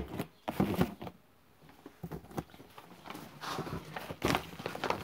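Brown kraft paper packing crinkling and rustling as it is lifted and handled, among a few short clicks and knocks from the box.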